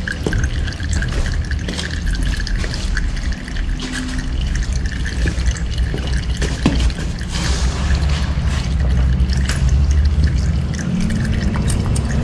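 Used engine oil from the Bajaj Dominar 400's engine trickling and dripping in a thin stream from the opened oil-filter housing into a plastic container, with small scattered clicks over a steady low rumble.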